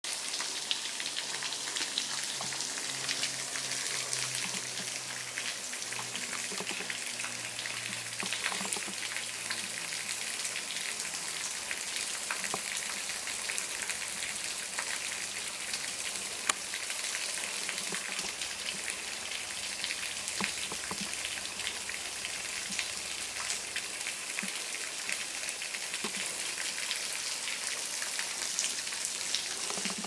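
Thin streams of a small woodland waterfall splashing steadily onto the rocks and water below, with many small drop impacts.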